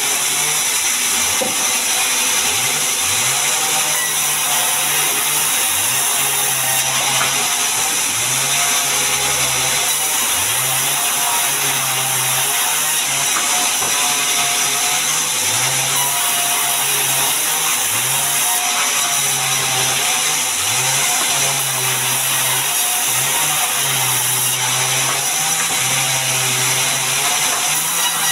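Large sawmill band saw running and ripping mahogany boards, a loud, steady hiss of blade through wood. Under it, a low hum repeatedly drops and rises again as the cut loads the saw.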